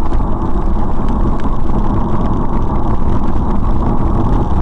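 Steady rumble of a moving car's engine and road noise, picked up by a dashcam's microphone, with no distinct impact.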